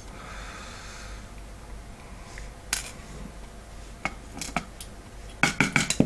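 Light clicks and taps of small lock pins and a thin metal tool against a 3D-printed plastic padlock and a plastic parts dish, as the pins are pushed out of their chambers. A few scattered clicks, then a quick run of louder clicks near the end.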